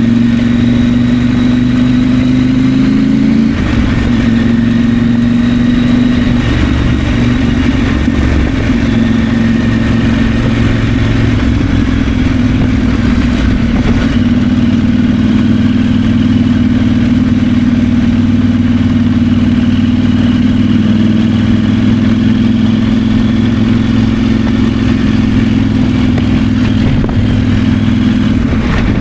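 KTM 890 Adventure's 889 cc parallel-twin engine running under way at fairly steady revs, with the engine note changing about three and a half seconds in.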